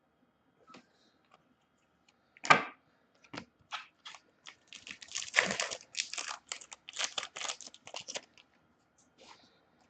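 Foil wrapper of a trading card pack torn open and crinkled: one sharp tear about two and a half seconds in, then a few seconds of dense crackling from about halfway through.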